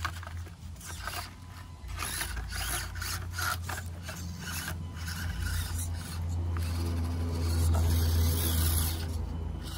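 Axial SCX24 micro RC crawler's stock brushed motor and plastic gear train whirring and grinding as it crawls over rocks. The tyres scrabble on the stone, and the drivetrain grows louder about seven seconds in as the truck climbs a rock.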